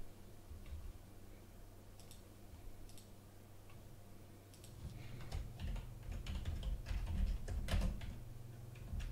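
Typing on a computer keyboard: a few scattered keystrokes at first, then a quick run of keys from about halfway through.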